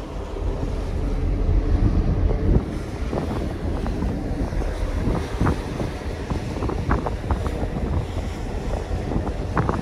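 Wind buffeting the microphone on a moving ferry's open deck, a steady low rumble, with the rush of water churning along the ship's hull below.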